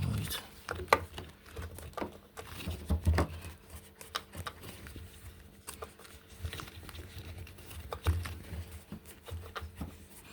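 Irregular clicks, taps and scrapes of hard plastic as a washing machine's drain filter is twisted and wedged side to side by hand to pull it out of its housing.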